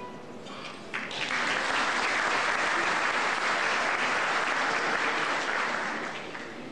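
Large audience applauding, building up about a second in and dying away near the end.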